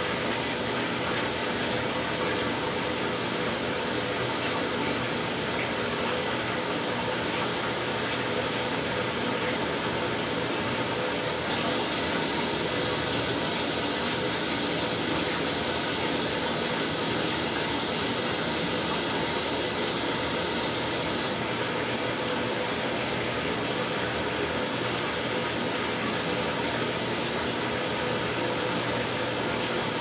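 Washing machine with water pouring into its drum and churning, a steady rushing hiss over a steady hum. The hiss turns brighter for about ten seconds in the middle.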